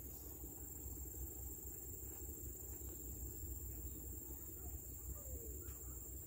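Quiet outdoor ambience: a steady low rumble under a constant high-pitched whine, with no distinct events.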